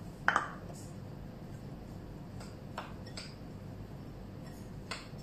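A spoon clinking against a glass mixing bowl while stirring a dry, crumbly oat batter: a sharp double clink about a third of a second in, then a few lighter taps.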